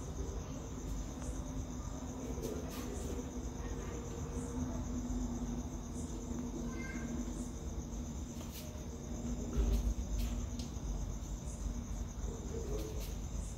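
Crickets trilling steadily in a high, pulsing tone, with a few sharp clicks and a faint low hum underneath.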